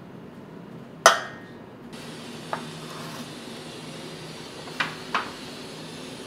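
An aluminium baking tray clanks sharply about a second in and rings briefly. Later come a light knock and then two quick knocks as the tray is handled and set down, over the steady hiss of a commercial bakery oven.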